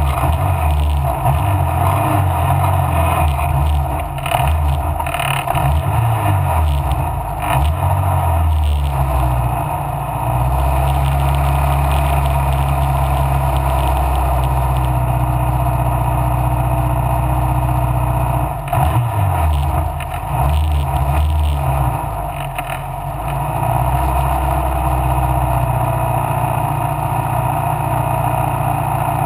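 Mallock Mk8B racing car's engine running hard at race speed. Its note drops and picks up again a few times, about four seconds in, near ten seconds and twice more about two-thirds of the way through.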